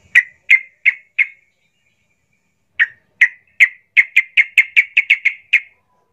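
Yellow-vented bulbul (trucukan) calling in sharp, clipped notes: four evenly spaced, a pause, then a faster run of about a dozen that speeds up, the rapid 'tembakan' burst prized in a lively singing bird.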